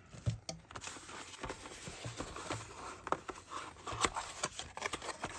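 Hands handling and opening drone packaging: soft rustling and scraping with many small light clicks and taps, a few of them sharper near the end.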